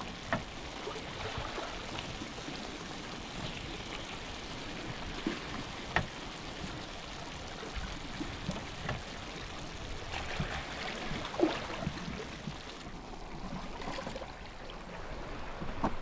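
A pan of squid sauté with tomatoes and peppers sizzling and simmering steadily, with a few sharp pops and clicks.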